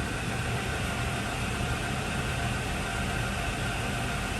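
1985 Hardinge HLV-H toolroom lathe running with its carriage under power feed: a steady mechanical hum with a few held tones.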